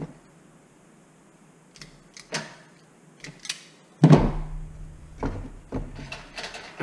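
Scattered light clicks of pliers and wires being worked at a metal light fixture on a workbench, with a louder knock about four seconds in as a tool is set down, then more light clicks.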